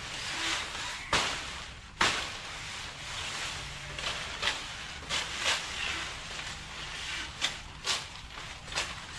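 Leafy mango branches rustling as a butcher knife hacks the leaves off, with sharp chops and snaps, two strong ones in the first two seconds and a quicker run of them in the second half.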